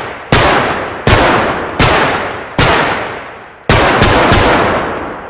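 M1911 .45 ACP pistol firing seven shots, the first four spaced under a second apart and the last three in quick succession, each shot trailed by a ringing echo that dies away over about a second.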